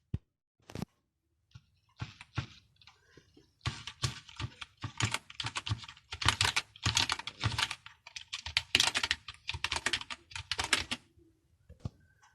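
Typing on a computer keyboard: a couple of single key clicks, then fast runs of keystrokes from about two seconds in, which stop about a second before the end.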